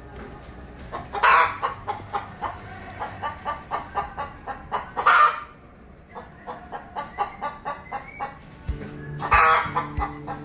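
A chicken cackling: runs of rapid clucks, each ending in a loud squawk, three times over.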